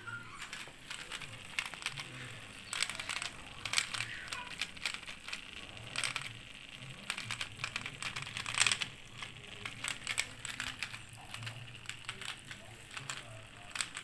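Washing machine drain pump running dry for a test, out of the machine: a steady low motor hum with an irregular crackling rattle over it.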